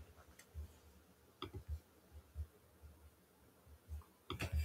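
Quiet room tone with a few faint, soft knocks scattered through it, a little more frequent near the end.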